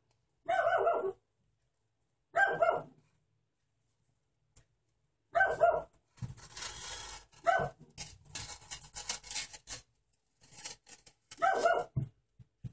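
A dog barking: five short barks spaced irregularly, with rustling handling noise in the middle stretch between them.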